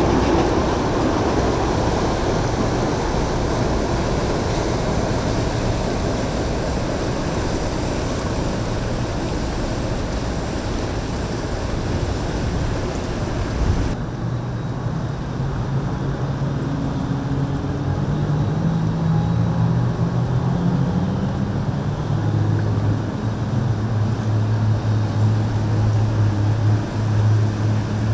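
Motorboat engines running over rushing water and wind. About halfway through, the sound changes abruptly to a steadier low engine drone whose pitch shifts up and down.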